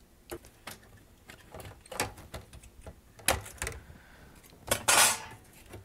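Thin sheet-metal shield cover being pried off a VCR circuit board: scattered sharp clicks and knocks, then a louder scrape of about half a second near the end as the cover is handled.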